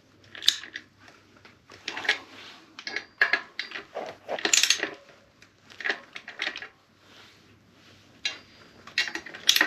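Torque wrench being worked on the brake disc bolts of a motorcycle wheel: short bursts of metallic clicking and clinking every second or two as the wrench is fitted and pulled to torque on one bolt after another.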